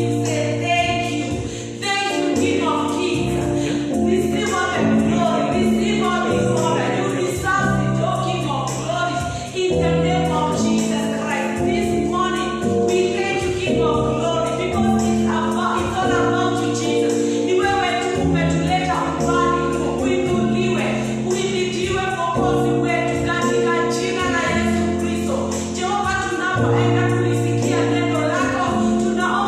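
Gospel music: a choir singing over steady instrumental chords.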